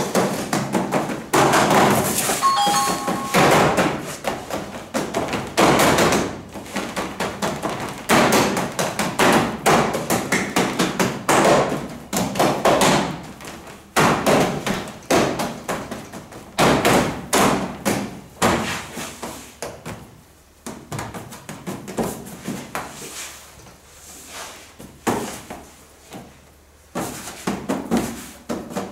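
Irregular knocks, taps and thumps of hands and dough pieces on a stainless steel work table and sheet-metal baking trays as bread dough is divided and set out on the trays. The knocking is busy for most of the time and thins out and quietens about two-thirds of the way through.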